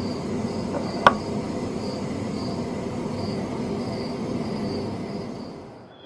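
Crickets chirping steadily, about two chirps a second, over a steady low background noise. About a second in, a candle holder knocks once sharply on the table. The sound fades out near the end.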